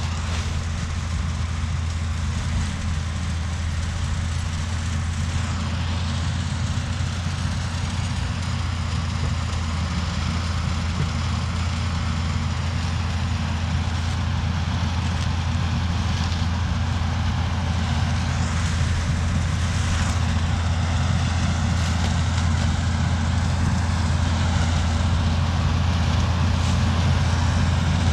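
A John Deere 3350 diesel tractor engine runs steadily with a low drone while the tractor pulls a Zmaj 222 corn picker through the rows. It grows slowly louder as it comes closer.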